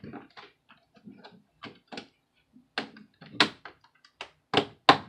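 Plastic snap clips of an HP Chromebook 14's case clicking and snapping loose as a plastic opening tool is worked along the seam between keyboard deck and base. An irregular run of small clicks, with the sharpest snaps in the second half.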